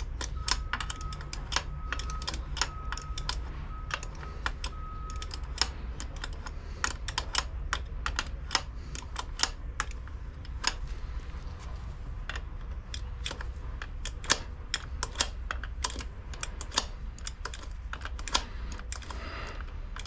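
Ratcheting wrench clicking as it turns the rear chain adjuster bolt on a Suzuki V-Strom 1000's swingarm to set chain slack: sharp metal clicks in uneven runs, a few per second.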